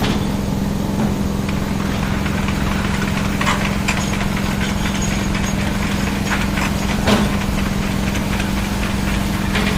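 Bulldozer's diesel engine running steadily with a constant low hum, with a few sharp metallic clanks over the top.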